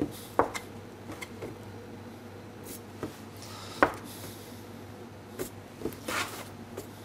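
Brioche dough being cut and handled with a metal dough scraper on a wooden worktop: a few soft knocks and rubs, the sharpest knock about four seconds in, over a low steady hum.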